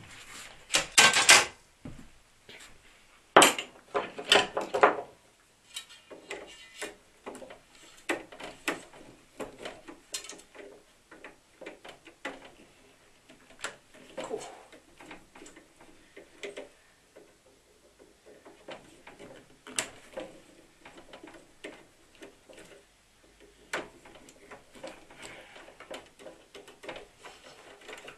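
Hand-tool and handling noise from dismantling a solar inverter: a few loud knocks and clatter in the first five seconds as loose cover pieces are handled and set down, then scattered light clicks and scrapes of a screwdriver and screws working inside the casing.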